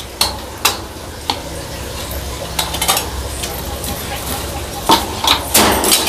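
Crow pecking at and handling a small plastic toy held in its feet: scattered sharp clicks and clattering taps, coming faster near the end.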